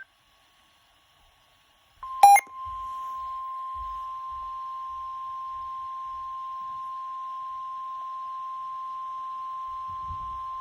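NOAA Weather Radio's 1050 Hz warning alarm tone: a single steady beep that starts about two seconds in, with a brief loud click as it begins. It is the attention signal that comes just before a severe thunderstorm warning is read.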